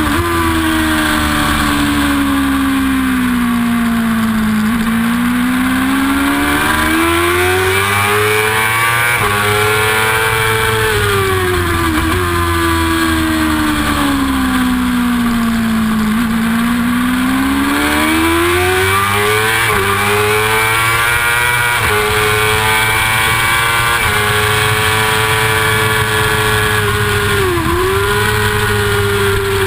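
Yamaha R6 600cc inline-four race engine at high revs, heard onboard: the pitch sinks slowly twice as the bike slows through corners and climbs back as it drives out, with quick steps at the gear changes and a steady high hold late on. Wind rushes past the bike-mounted camera.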